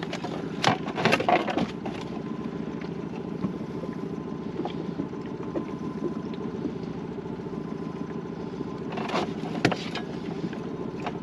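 Steady engine hum of a motor running at a constant pitch. A few sharp knocks and clatters come near the start and again about nine seconds in as a freshly caught sea bass is handled and unhooked in the inflatable boat.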